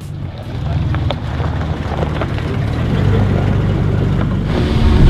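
Car engine working hard at low speed up a rough gravel track, with stones clicking and knocking under the tyres. Near the end there is a louder burst of engine and gravel noise, like wheels scrabbling for grip.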